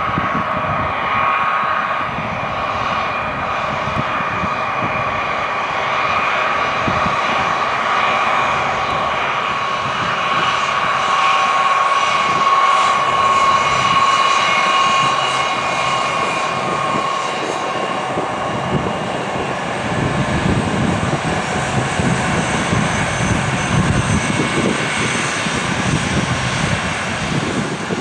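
Boeing 757-200F freighter's twin turbofan engines running at low taxi thrust as it taxis past: a steady high whine over a jet hiss, strongest around the middle, with a deeper rumble building in the second half as the engine passes closest.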